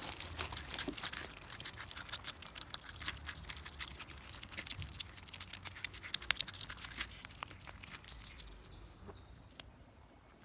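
Dry rustling and crinkling, a dense run of small crackles that thins out and fades over the last couple of seconds.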